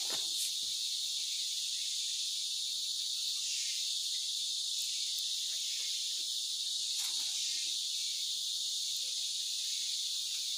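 Steady, high-pitched chorus of forest insects, an even shrill drone with a few faint ticks.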